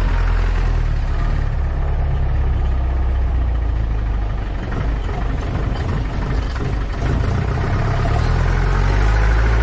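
Off-road jeep engine running on a rough forest track, a deep steady drone that eases off briefly in the middle and picks up again near the end.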